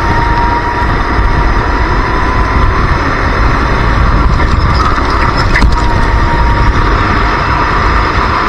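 Racing go-kart engine running hard at speed, heard from on board the kart; its note shifts a little higher in the second half.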